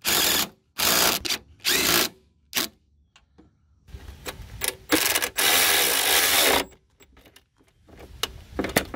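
Cordless electric ratchet spinning a 13 mm bolt in short bursts: four quick runs in the first three seconds, then one longer run of about two seconds near the middle, as it drives and snugs down the bolts holding the EVAP canister box.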